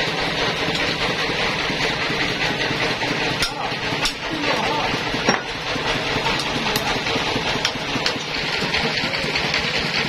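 Band sawmill machinery running steadily, with a few sharp metal knocks as the log clamps are set against a teak log on the carriage.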